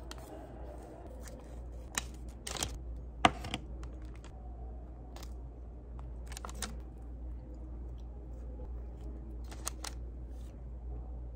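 Small handling sounds of a foil-lidded cream cheese cup being opened and cream cheese being spread on a bagel with a knife: a few sharp clicks and crinkles of foil and paper wrapper, the loudest a single sharp click about three seconds in, over a steady low hum.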